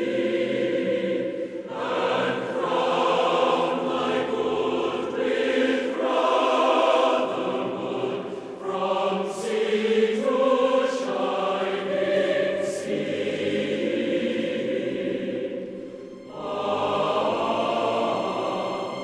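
Music with a choir singing held notes, the chords changing every second or two.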